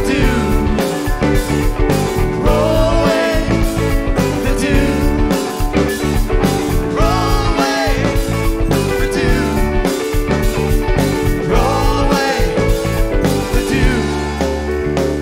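Psychedelic rock band playing an instrumental jam, with a lead guitar melody bending and winding over a steady beat.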